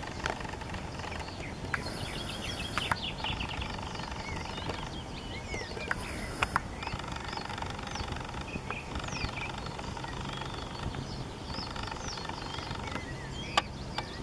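Open-air meadow ambience: small birds calling with many short chirps over a steady low rumble, broken by a few sharp clicks.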